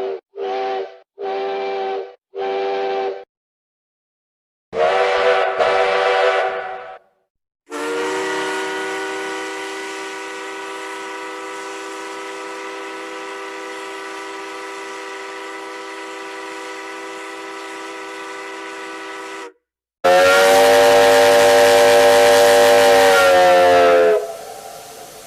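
A run of separate steam train whistle recordings: three short toots, then a blast of about two seconds. A long steady whistle of about twelve seconds follows, then a louder blast that sags in pitch and trails off near the end.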